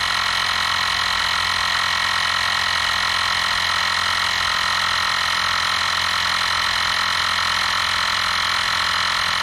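EAFC cordless rechargeable air compressor running steadily with a high-pitched whine, pumping up a bicycle tire as the pressure climbs past 32 psi toward its 40 psi auto shut-off.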